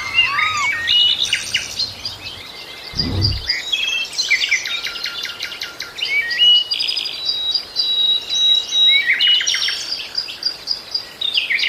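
Several small songbirds chirping and trilling in quick, high, varied phrases, with a brief low thump about three seconds in.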